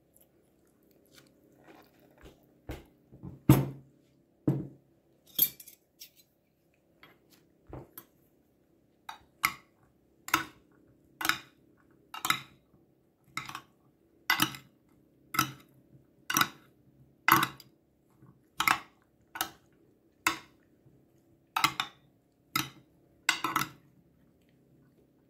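Two metal spoons tossing diced cauliflower, potato and pepper in a glass baking dish, clinking against the glass. The clinks are scattered at first, with one louder knock a few seconds in, then come regularly about once a second.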